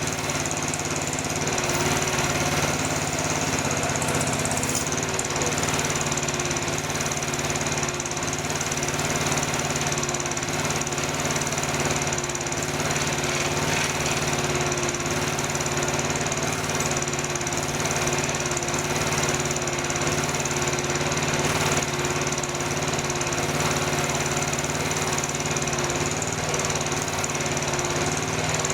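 Mini excavator's engine running steadily, with a slight change in its note about four to five seconds in.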